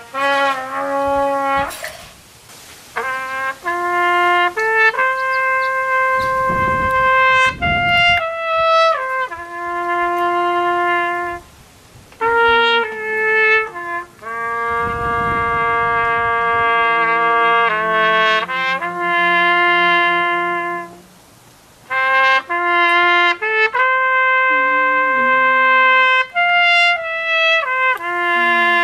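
Solo trumpet playing a slow melody of long held notes, in phrases with short breaks between them.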